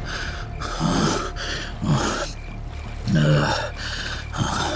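A man gasping and panting hard for breath, a string of ragged breaths about a second apart, as from exhaustion.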